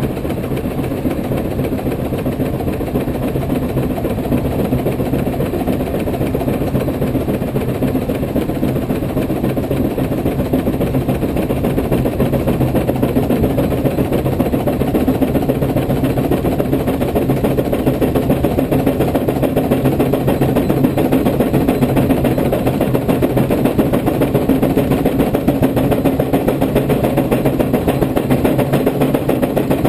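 Case 110 hp steam traction engine running on a belt brake, its exhaust beating steadily from the stack. The beat grows gradually louder and sharper toward the end as the engine is worked harder.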